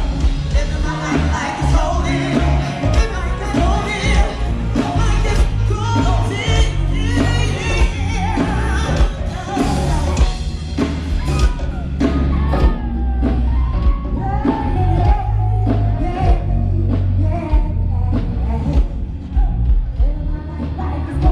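A soul band playing live, with a lead singer over a strong bass line and steady drum beats.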